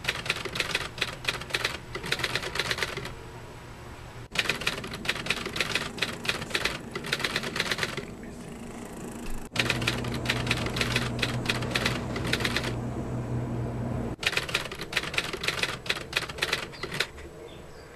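Rapid, irregular mechanical clicking in runs of several seconds broken by short pauses, with a steady low hum under the clicking in the middle stretch.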